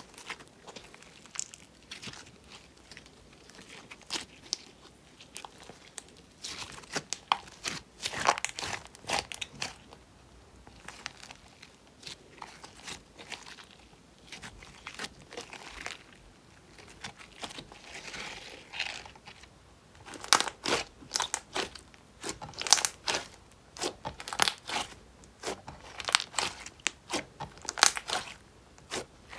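Slime being kneaded and squeezed by hand, giving sticky clicks and pops. The clicking thins out in the middle while the slime is pulled into strands, then comes thick and fast again from about twenty seconds in.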